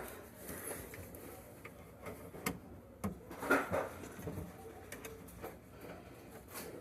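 A few sharp clicks and knocks of things being handled, scattered over a low background, with a brief faint pitched sound in the middle.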